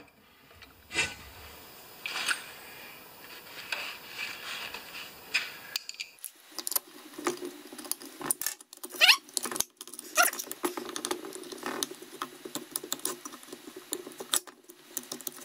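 Screwdriver and small screws clicking and scraping against a chainsaw's carburetor frame and housing as the parts are fitted by hand: irregular light clicks and ticks. A low steady hum comes in about six seconds in.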